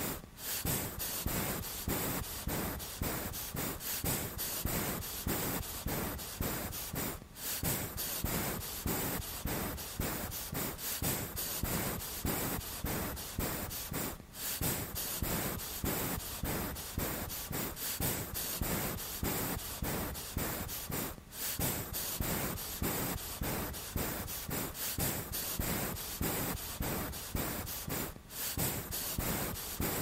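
A cat's heavy breathing, sped up to three and a half times normal speed: fast, rhythmic huffs of breath, several a second, with a short break about every seven seconds.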